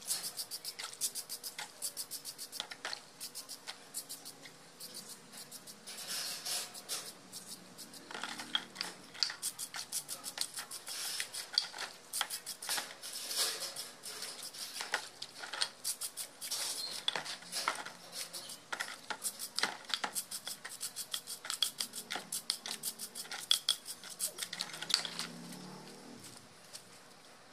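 Small stiff brush scrubbing wet metal lock parts in a basin of soapy water: quick, rasping back-and-forth strokes with light metallic clinks, in runs with short pauses, stopping near the end.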